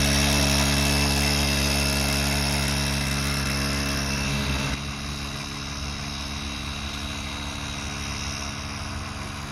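Small single-cylinder mini bike engine running at a steady, fairly constant speed as the bike is ridden. It gets quieter about five seconds in as the bike moves away.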